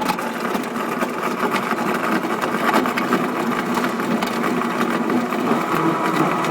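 Santos 'Silent' brushless drinks blender running steadily, blending a load with ice cubes: an even motor hum with many small rattling clicks from the jar contents.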